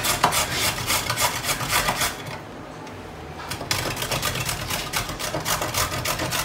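Carrot being grated on a metal box grater: quick rasping strokes, about four a second, with a pause of about a second and a half in the middle.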